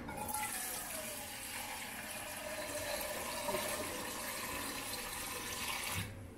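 Tap water running from a kitchen faucet into a small pot, splashing as the pot fills. The flow stops abruptly near the end.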